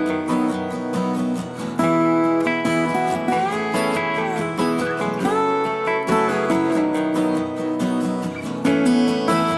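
Background music: acoustic guitar, plucked and strummed, with some notes sliding in pitch.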